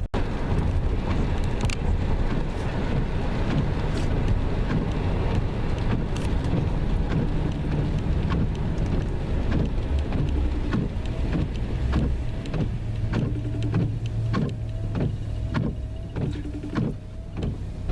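Car cabin while driving in the rain: steady road rumble with raindrops tapping on the car. In the second half a short squeak repeats a bit faster than once a second.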